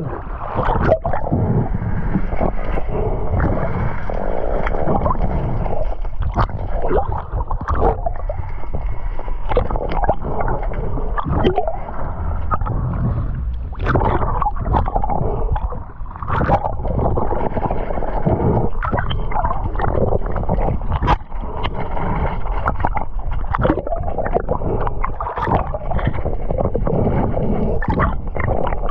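Water gurgling and sloshing around a camera held at and just below the sea surface, with many short knocks and splashes.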